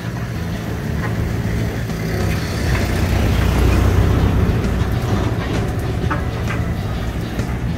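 Diesel engine of an amphibious excavator running under working load, growing louder toward the middle and easing off again, with a few light knocks in the later part.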